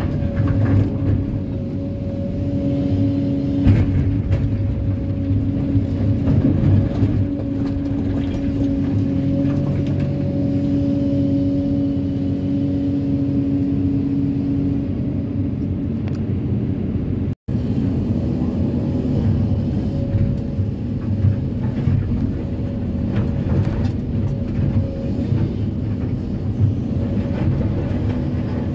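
Kobelco SK330-10 crawler excavator working, heard from the cab: the diesel engine runs steadily under load, with a tone that swells and fades as the boom and bucket move. Occasional knocks of rock in the bucket. The sound cuts out for an instant about two-thirds through.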